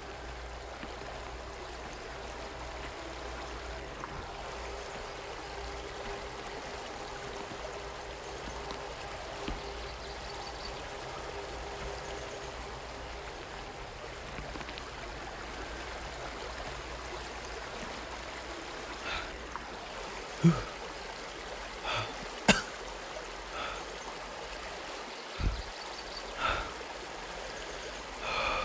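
River water running steadily. In the last third, several short thumps and knocks stand out over the water, the loudest about twenty seconds in.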